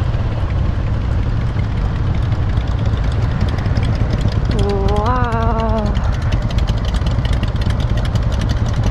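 Motorcycle engines idling in a queue of bikes, a steady low rumble. About five seconds in there is a brief pitched sound that rises and then holds for about a second.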